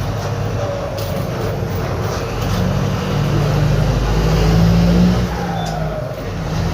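Mercedes-Benz OF-1721 BlueTec 5 bus's four-cylinder diesel engine running under load, with the louder sound of a holed exhaust. It builds for a couple of seconds, then eases off sharply about five seconds in.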